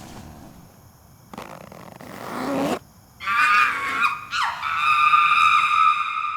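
Monkeys screeching and hooting in bursts, ending in one long held high screech.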